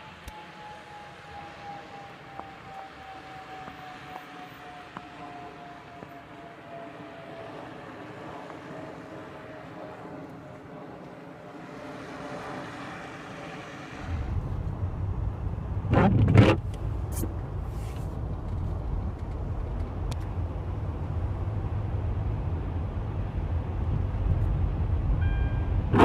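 Light outdoor hiss with a faint drone slowly falling in pitch. About halfway through it switches suddenly to the steady low rumble of a car driving on a snowy street, with a short loud noise a couple of seconds after the switch.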